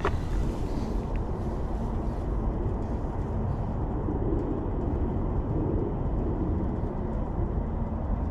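Steady low outdoor background rumble, with a short sharp click near the end.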